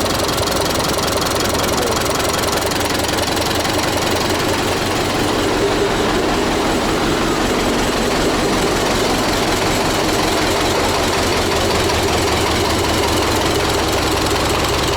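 Tractor diesel engine idling steadily, running without the knock it had in its second cylinder, a knock traced to a failed valve keeper.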